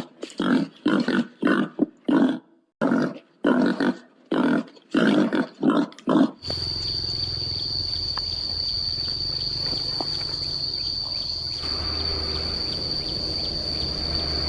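An animal's rhythmic grunting roar calls, about two to three a second, with a short pause partway through. About six seconds in they cut off abruptly, and a steady, high-pitched insect drone takes over.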